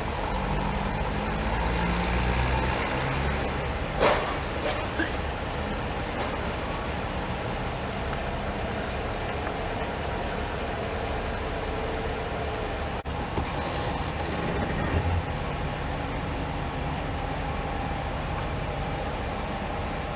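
The engine of the vehicle hauling a boat on a wheeled trailer, running steadily with a low rumble that is heavier in the first few seconds. There is a sharp bang about four seconds in.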